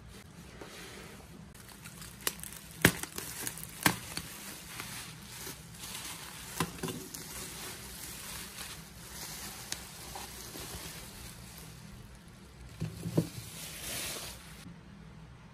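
Plastic bubble wrap being handled and pulled off, a steady crinkling with several sharp clicks. A light knock near the end as a mug is set down on the table.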